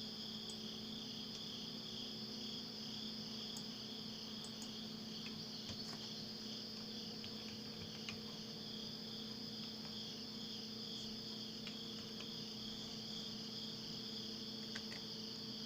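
Crickets chirping steadily with a fast, even pulse, over a faint steady low hum.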